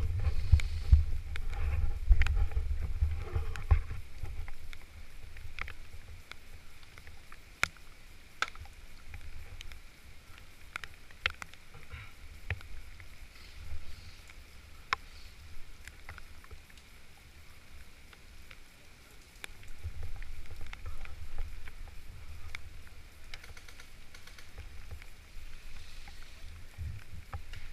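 Low rumbling noise on the microphone, loudest in the first few seconds and again about twenty seconds in, with scattered sharp clicks throughout.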